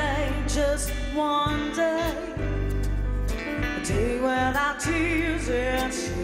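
A woman singing a melody with vibrato into a microphone over a live band of double bass, piano and drums.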